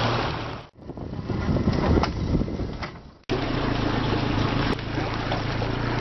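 Small boat's outboard motor running steadily under way, with water rushing past and wind on the microphone. The sound cuts off abruptly twice in the first few seconds where the recording jumps, and the motor's steady hum is plainest in the last part.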